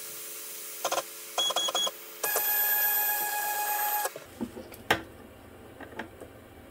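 Genmitsu ProverXL 4030 desktop CNC's stepper motors whining as the gantry jogs: a few short moves, then one longer steady move that stops about four seconds in. Then light clicks and scrapes of a digital caliper being handled against the aluminium part.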